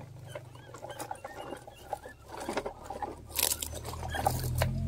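Plastic toy trucks and a toy excavator rolling and scraping over dirt, gravel and dry leaves: irregular small clicks, rattles and scratchy rustles, with a louder rattle about three and a half seconds in. A low steady hum builds near the end.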